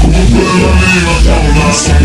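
Latin dance-band music from an old 78 rpm record: an instrumental passage with a heavy bass beat and no singing.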